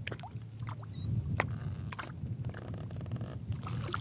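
Water sloshing and small splashes at the side of a boat as a hand holds a bass in the water and lets it go, with scattered light drips and ticks over a steady low rumble of wind and chop against the hull.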